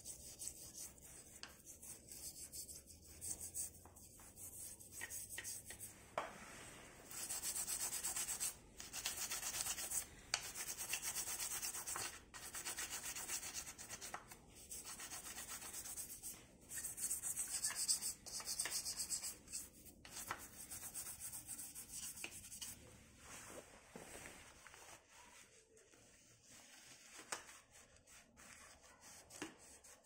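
A stiff brush and a metal tool scrubbing and scraping caked dirt off a bicycle's bottom bracket shell and cup: runs of quick scratchy strokes, loudest through the middle, giving way to softer rag wiping near the end.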